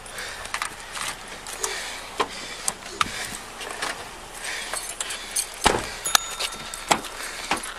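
Clicks, knocks and metallic jangling of handcuffs and gear while a handcuffed person is handled beside a police patrol car and its rear door is opened. A loud thump comes about three-quarters through, followed right after by a short steady electronic tone.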